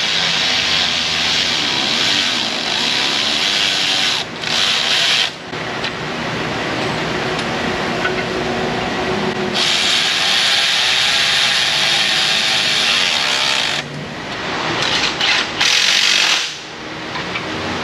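A power tool running in long stretches with a steady whirring hiss, running nuts onto the exhaust pipe studs. It breaks off briefly about four and five seconds in, runs louder from about ten seconds, and stops briefly near the end.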